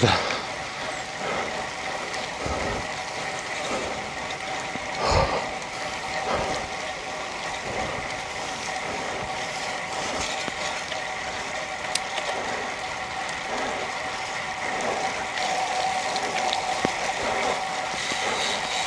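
Bicycle being ridden in heavy rain: a steady wet wash from the tyres and rain, with a mechanical whirring and ticking from the bike's moving parts. A short knock comes about five seconds in.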